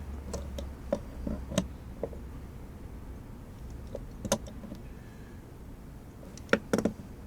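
Scattered small clicks and knocks of the hot tub temperature sensor's fitting being handled and snugged up by hand, with a faint low hum beneath. The loudest knock comes about four seconds in, and a quick cluster of clicks comes near the end.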